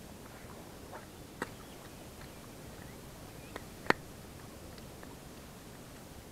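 Close handling noise from a caught fish and fishing tackle held against the camera: scattered light taps and clicks, with the sharpest click about four seconds in, over a steady low hiss.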